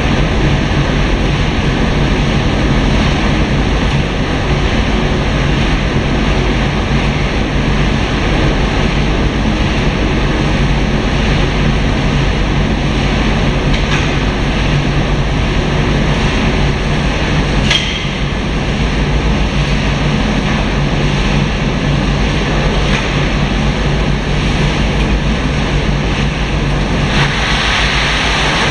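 Snack-food processing machinery running with a loud, steady mechanical drone over a constant low hum. A single sharp knock comes about two-thirds of the way through.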